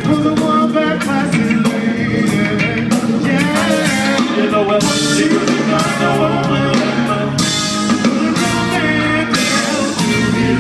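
Live band playing a song with a male lead singer over electric guitar, keyboard, bass and drums, with a trumpet.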